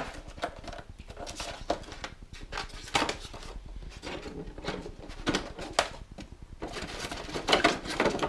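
Hand rummaging in a polystyrene foam packaging insert, with the foam rubbing and scraping and some short knocks as plastic parts are worked loose. It gets busier near the end.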